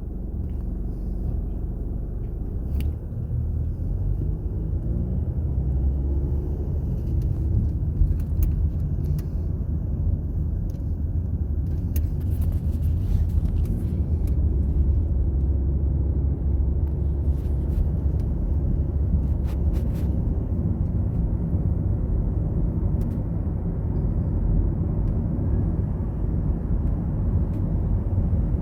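Steady low rumble of a car's engine and tyres heard from inside the cabin, growing a little louder over the first several seconds, with a few faint light ticks.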